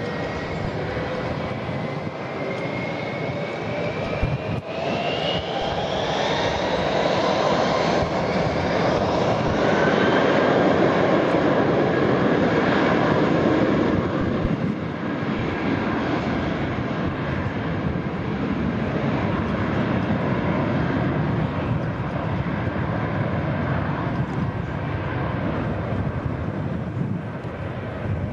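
Airbus A320 jet engines at taxi power: a steady rushing noise with a whine that rises in pitch over the first several seconds. The noise swells to its loudest about ten to fourteen seconds in, then eases slightly.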